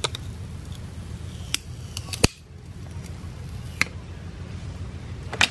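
Cracked tempered-glass screen protector being peeled off a phone screen: a few sharp clicks and snaps as the glass lifts away, over a low steady hum.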